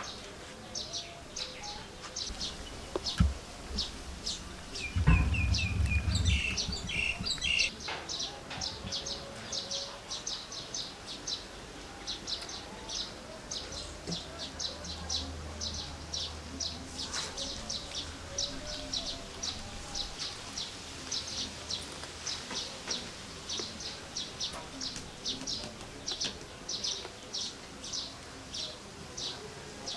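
A small bird chirping over and over, short high chirps at about three a second. A sharp click comes about three seconds in, and a louder low noise with a brief clear call around five to seven seconds in.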